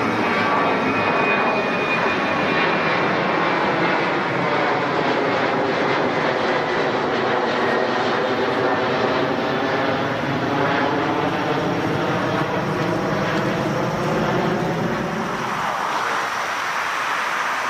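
Air China Boeing 737-800's two CFM56-7B turbofans at climb power as the jet passes low overhead after takeoff: a steady jet roar whose pitch pattern slides down and back up as it goes over. Near the end the roar gives way to a broader, hissier airport noise.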